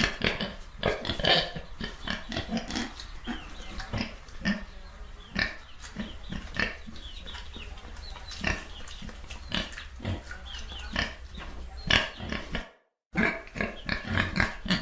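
Pigs grunting and oinking in a dense, irregular string of short calls. The sound cuts out completely for a moment near the end, then resumes.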